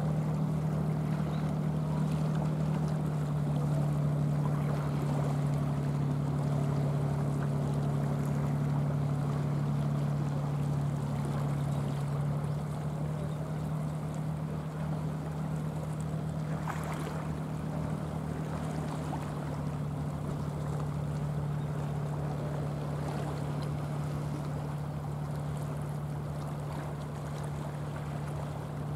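A steady low engine hum over a wash of wind and surf, a little quieter after about twelve seconds.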